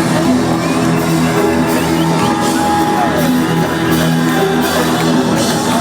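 Live reggae band music playing loud and steady, with sustained bass and chords.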